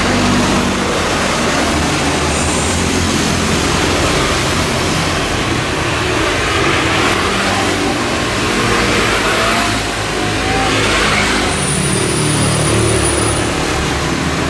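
Scooters and small motorcycles going past one after another on a wet road, their engines running over a continuous hiss of tyres on wet asphalt.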